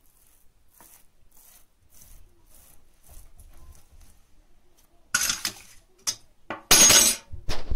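Rolled dough being handled on a glass tabletop: faint soft rubbing, then from about five seconds in several loud scrapes and knocks of kitchenware against glass, the loudest near the end.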